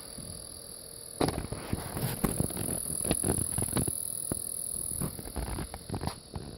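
TriCaster Mini video switcher ticking rapidly and irregularly from its cooling fan, over a steady fan hum. The ticking thickens about a second in. The owner takes it for something caught in the fan.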